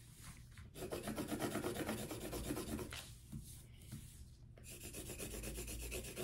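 Colored pencil scratching on paper in quick, rapid strokes as an outline is drawn. It starts about a second in and comes in two spells, with a short pause in the middle.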